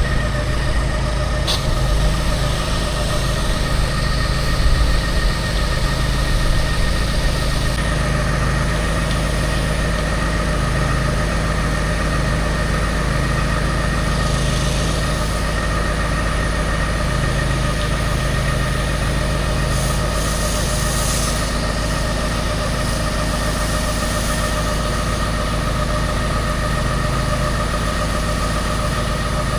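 Gas engine of a pressure-washing rig running steadily at constant speed, with a faint hiss of spray now and then.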